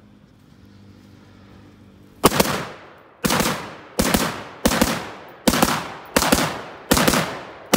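Short AR-style rifle firing a string of eight single shots, about one every second or a little faster, each trailing off in an echo. The shooting begins about two seconds in.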